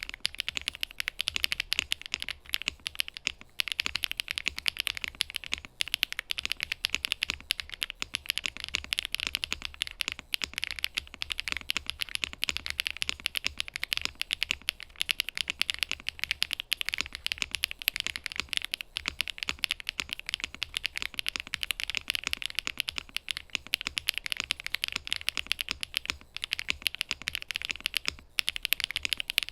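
Lemokey P1 Pro mechanical keyboard with HMX Bamboo switches and Wuque Studio keycaps being typed on quickly and continuously: a dense run of key clacks with a little low thud under them, stopping at the very end.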